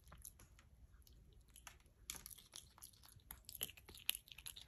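A capuchin monkey chewing and crunching peanuts: faint crackling and clicking bites that get busier about two seconds in.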